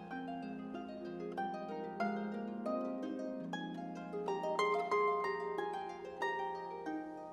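Solo concert harp playing a flowing passage: plucked notes ringing and overlapping over held bass notes, with a brighter, louder cluster of notes about five seconds in.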